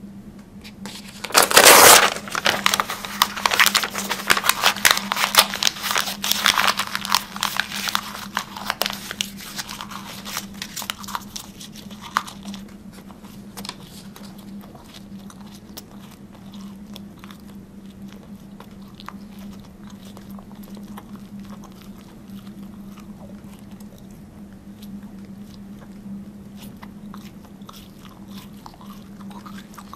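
A person bites into something hard and brittle about two seconds in, then chews it with close, dense crunching that thins out after about ten seconds into occasional faint clicks of the mouth. A steady low hum runs underneath.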